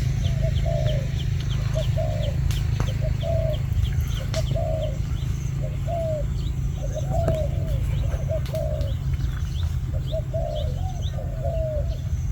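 A dove cooing over and over in short, repeated low notes, with a fast series of high chirps from small birds and a steady low rumble underneath.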